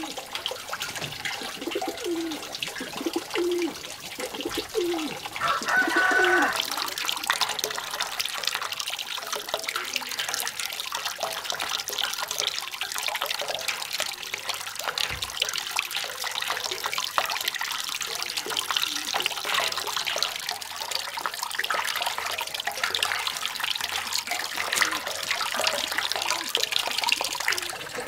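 Water running steadily from a bamboo pipe spout into a metal basin, with splashing as vegetables are washed by hand in it. A bird calls a few times in short low notes near the start.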